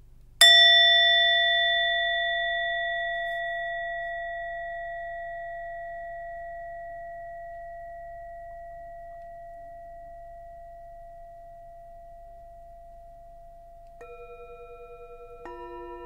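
Set of three singing bowls struck with a mallet: the smallest rings out with a bright tone about half a second in and fades slowly over some 13 seconds. Near the end two larger bowls are struck in quick succession, each lower in pitch, their tones wavering slightly.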